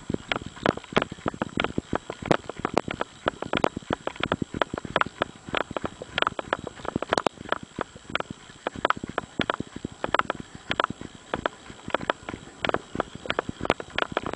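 A runner's footfalls crunching on a gravel and dirt trail in a quick, even rhythm of several steps a second.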